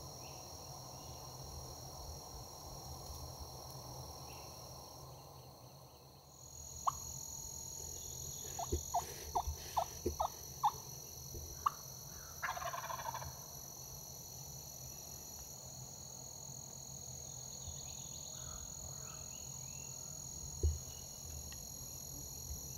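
Osceola wild turkey gobbling from the roost: a run of short sharp notes in the middle, then a brief rattling burst, over a steady high insect trill.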